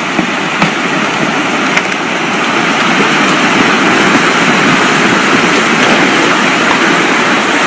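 Muddy water rushing and churning as the bank of a cypress swamp collapses into a sinkhole, a steady loud wash of noise.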